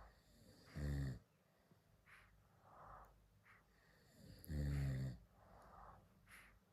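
Snoring: two loud, low snores about four seconds apart, with quieter breaths between them.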